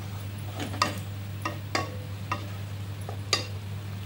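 Wooden spatula stirring prawn thokku in a non-stick kadai, with irregular scrapes and knocks against the pan about twice a second. Under it the thick masala gravy sizzles faintly as it cooks, over a steady low hum.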